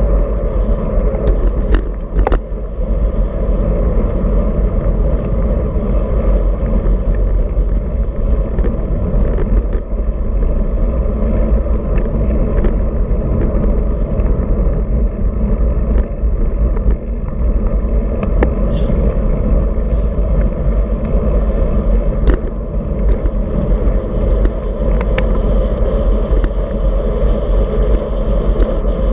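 Wind rushing over a handlebar-mounted camera's microphone on a moving road bike, a steady heavy rumble mixed with tyre and road noise, with a few sharp clicks and knocks from bumps in the road.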